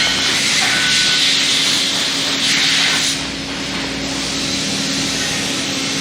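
Steady machinery noise: a loud even hiss over a low hum. A stronger hiss swells about two and a half seconds in and stops sharply about half a second later.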